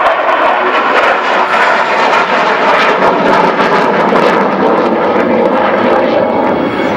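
F-16 fighter jet flying its display, its jet engine a loud, steady rushing noise.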